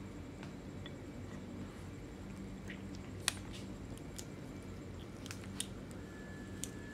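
A group of cats eating chicken, with scattered sharp clicks and crunches of chewing, the loudest about halfway through, over a low steady hum.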